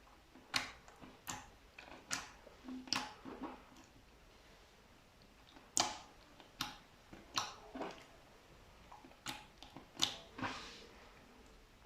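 Slime with small white beads mixed in being pressed and squeezed, making about a dozen short wet crackles and pops at irregular intervals.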